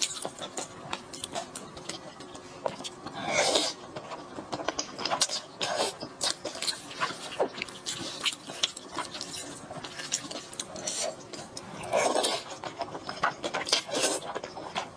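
Eating sounds: a steady run of sharp clicks and crackles from chewing and handling food, with two longer, louder noisy sounds about three seconds in and near the end.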